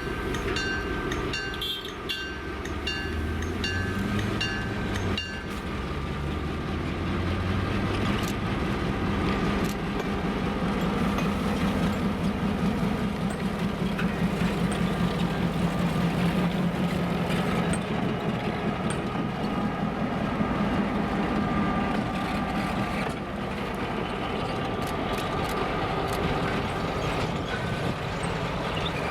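EMD GP7 diesel locomotive with a 567B engine running as the train moves. For the first five seconds a ringing tone repeats about twice a second. The engine drone then grows louder through the middle and eases off near the end.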